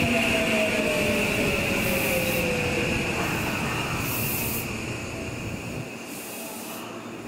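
Electric commuter train running past and fading away. Its wheels give a steady high squeal, and its motor whine falls in pitch over the first few seconds.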